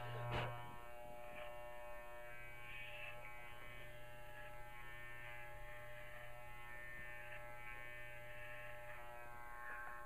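Electric dog clippers running with a steady buzz as they are pushed through a dog's thick fur, the sound shifting as the blades bite into the coat; briefly louder just after the start.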